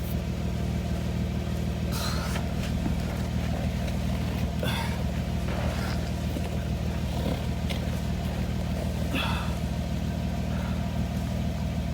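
Vehicle engine idling with a steady low hum, with a few brief faint noises over it.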